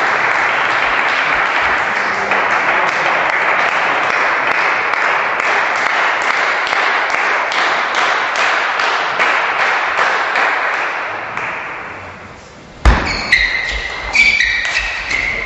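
Spectators applauding in a hall after a point, the clapping fading away over about twelve seconds. About thirteen seconds in, a table tennis rally starts: a sharp knock, then quick, ringing clicks of the ball off bats and table.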